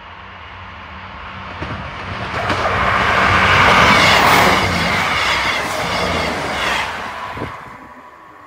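A Great Western Railway Class 158 diesel multiple unit passing at speed. The running noise builds and is loudest about four seconds in, with the wheels clacking over rail joints, then dies away over the last second or so.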